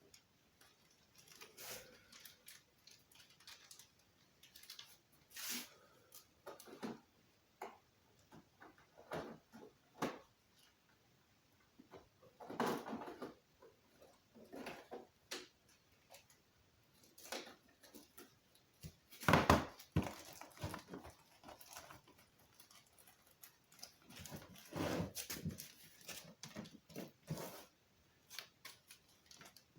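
Scattered handling noises of small parts and packaging: intermittent rustling, light clicks and taps, the loudest about two-thirds of the way through.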